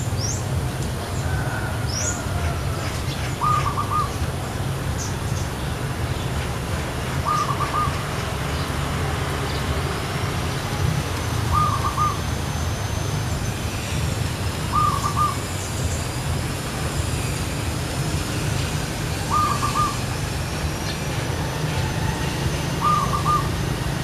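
Zebra dove calling: a short, quick run of three or four soft cooing notes, repeated six times about every four seconds. A steady low rumble runs underneath, and faint high chirps from other birds come in the first few seconds.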